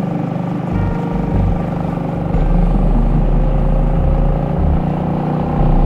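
Small boat's motor running steadily under way, with a low drone that gets louder a little over two seconds in.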